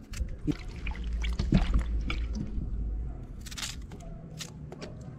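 Knife cutting peeled breadfruit, with wet pieces dropping into a steel bowl of water and a short splash about three and a half seconds in.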